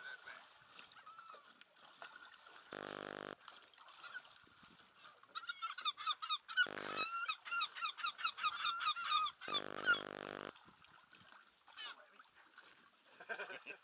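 A flock of geese honking, faint at first, then a dense run of rapid overlapping honks through the second half. Three short, even buzzes cut in, about three, seven and ten seconds in.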